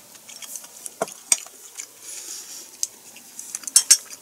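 A person chewing a mouthful of food close to the microphone, with a few sharp mouth clicks and smacks. Two of the clicks come close together near the end.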